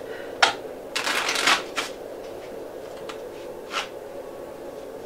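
A deck of playing cards being shuffled by hand: a sharp snap, then a quick crackling riffle lasting about half a second, followed by a few lighter clicks of cards being handled.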